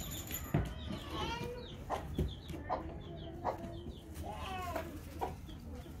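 Chickens clucking: a string of short calls that slide down in pitch, with a few sharp knocks mixed in.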